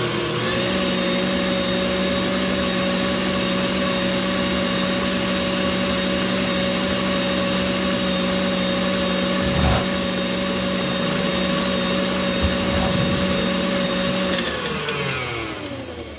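KitchenAid stand mixer's motor running steadily with a whine as it beats a batter in a stainless steel bowl. It speeds up about half a second in, then is switched off near the end and winds down with a falling pitch.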